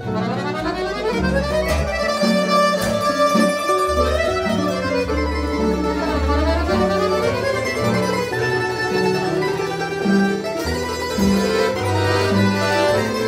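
Tambura band playing a lively kolo: tamburas strumming and picking, an accordion and a plucked double bass on the low notes. The melody runs quickly up and down the scale in the first half.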